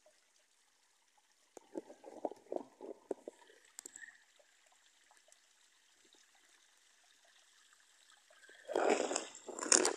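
Thin stream of water from a pipe trickling steadily into a metal basin. Short bursts of louder noise come about two seconds in, and louder ones near the end.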